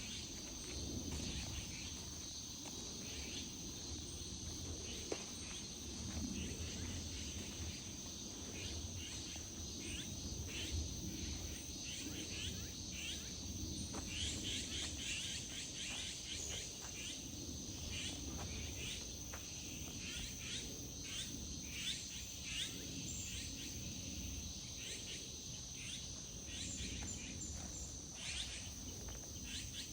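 Outdoor ambience of insects: a steady high-pitched trill runs throughout, with many short chirps scattered over it and a low steady rumble beneath.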